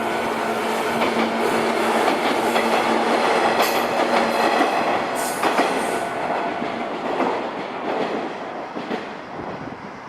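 A train passing over a level crossing on the JR Kisei Main Line, its wheels clattering over the rail joints with a couple of sharp knocks. The noise holds loud for several seconds, then fades over the last few seconds as the train moves away.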